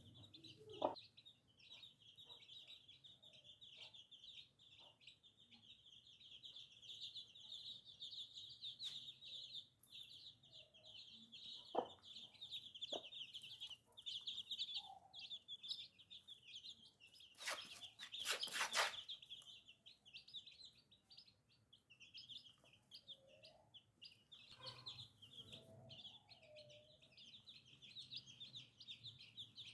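Baby chicks peeping continuously in a dense high-pitched chorus, with a few lower clucks and several short knocks. A loud burst of noise lasting about a second and a half comes a little past the middle.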